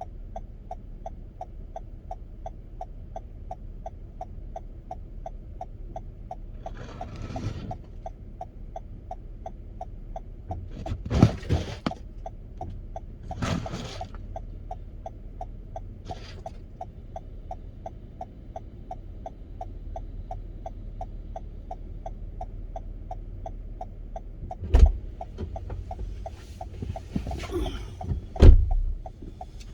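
Car driving through snow, heard from inside the cabin: a steady low road rumble with a fast, regular ticking running under it, and a few short loud thumps and bumps, the loudest near the end.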